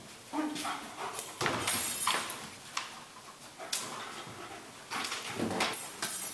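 Police narcotics-detection dog searching on a hard floor: irregular clicks and scuffs of its claws as it moves and scrabbles against a wooden board, with a heavier knock about five seconds in as it drops back down.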